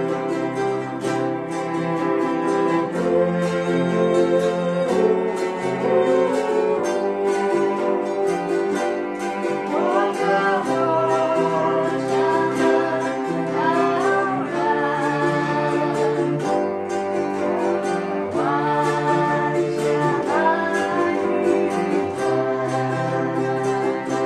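Ukuleles, piano and cello playing a gentle song together, with voices humming and then singing along from about ten seconds in.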